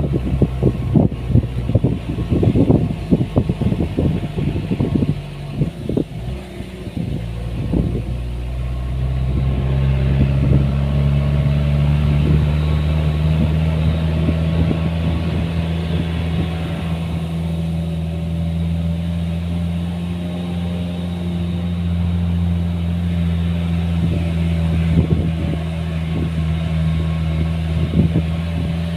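Irregular knocking and clattering for the first several seconds, then an engine comes in and runs steadily at an even, low pitch for the rest of the time.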